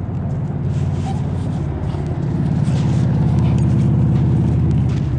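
A motor vehicle's low engine rumble, growing louder about two seconds in and easing slightly near the end.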